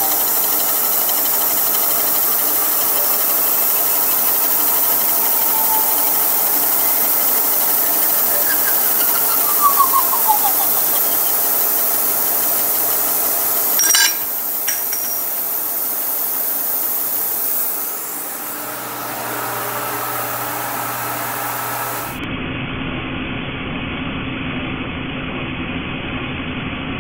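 Slitting saw on a Kearney & Trecker horizontal mill cutting through an aluminum water neck, a steady high hissing whine. A sharp click comes about halfway through, after which the saw runs on more quietly.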